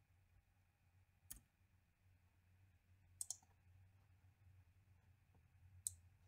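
A few faint, sparse clicks from a computer keyboard and mouse: single clicks about a second and a half in and near the end, and a quick double click about three seconds in, over near silence with a low hum.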